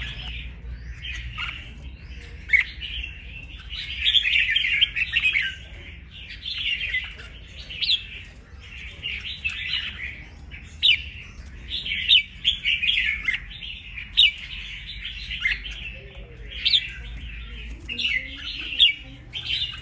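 Caged red-whiskered bulbul singing: short, bright warbled phrases repeated every second or two.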